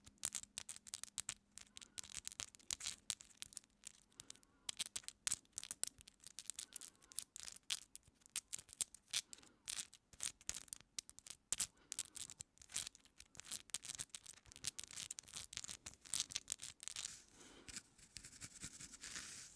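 Fingertips and long acrylic nails picking and parting through hair right at a microphone, a dense run of small crackling clicks. Near the end a wide-toothed comb is drawn through the hair, a softer continuous scratching.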